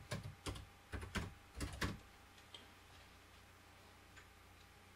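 Typing a short word on a computer keyboard: a quick run of about seven keystroke clicks over the first two seconds, then a faint click or two.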